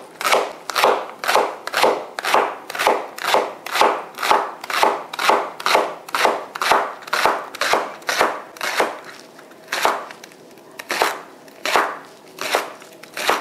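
Chef's knife slicing a leek into rings on a plastic cutting board. Each cut ends in a knock of the blade on the board, about two cuts a second, with a short pause before a few last cuts.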